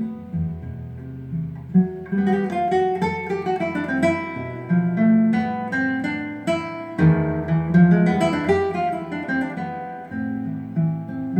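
Acoustic guitar music played through a small stereo Bluetooth speaker: plucked notes over a low bass line, with a quicker run of higher notes from about two seconds in.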